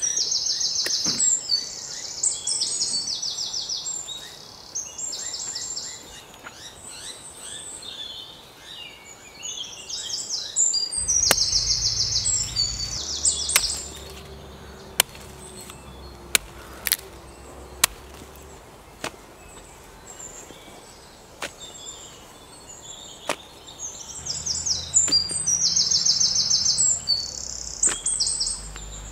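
About ten sharp chops of a khukuri blade striking a rotten tree stump, spaced a second or two apart, starting about a third of the way in. Birds call with high, rapid trills in repeated bouts throughout.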